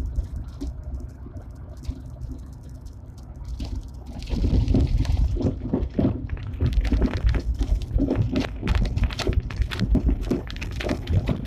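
Lada Granta on the move, heard from inside: a steady low running rumble, then from about four seconds in a louder stretch of irregular knocks and rattles. The knock from the rear, which the owner puts down to weakened thin springs holding the drum brake shoes.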